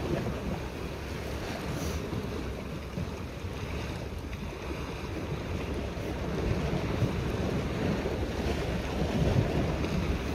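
Wind buffeting the microphone over waves washing against a rocky sea shore, a steady rough rush that swells a little about two thirds of the way through.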